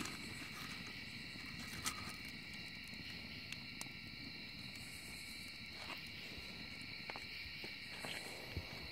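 Wood fire crackling in a metal fire pit, with a few sharp pops, the loudest about two seconds in, over a steady high-pitched drone of night insects.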